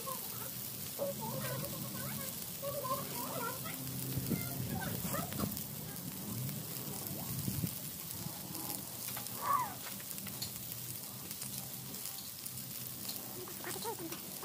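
Pork belly sizzling in a cast-iron pan over a charcoal kettle grill, a steady crackling hiss that sounds like rain. A few light clicks come from metal tongs as the pieces are turned.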